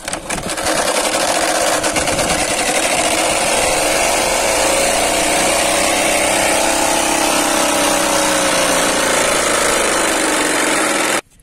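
A plastic strip cut from a bottle, set inside a capped plastic-bottle 'silencer' on a bicycle, clattering against the spokes of the spinning rear wheel as the pedals are turned. It makes a loud, continuous motorbike-like buzz that rises in pitch as the wheel speeds up, eases off, and then cuts off suddenly near the end.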